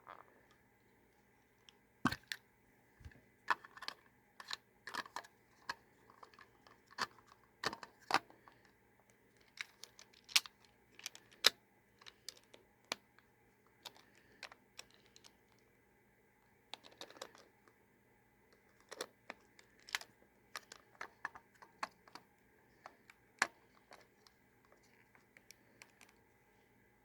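Irregular clicks, taps and light knocks of hard plastic being handled: an action camera's clear waterproof housing being opened, the camera fitted and the case latched shut. A faint steady electrical hum sits underneath.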